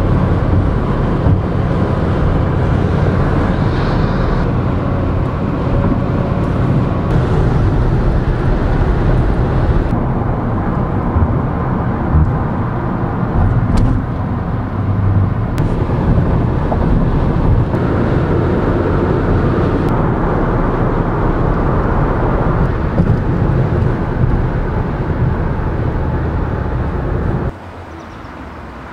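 Steady road noise of a car cruising at highway speed, heard from inside the cabin: a continuous low rumble of engine and tyres. Near the end it drops suddenly to a much quieter background.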